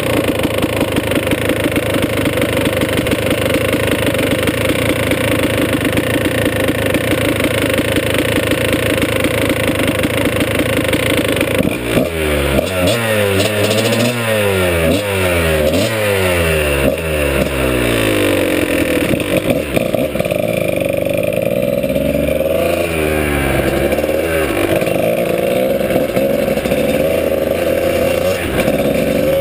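Dirt bike engine idling steadily, then about twelve seconds in revving up and pulling away. Its pitch climbs and drops back several times as it shifts up through the gears, then rises and falls unevenly as the bike is ridden along the trail.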